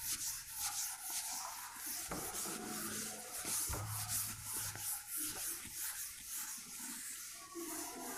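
Chalkboard being wiped with a duster: a run of quick, repeated scratchy rubbing strokes across the board.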